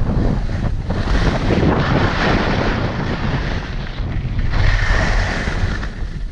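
Skis scraping and hissing over firm, bumpy snow, surging twice with the turns, about two seconds in and again about five seconds in. Wind rumbles on the head-mounted action camera's microphone throughout.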